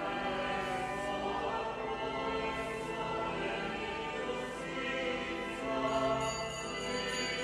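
Opening of a sacred choral introit: choir with instrumental accompaniment holding slow, sustained chords, swelling slightly near the end.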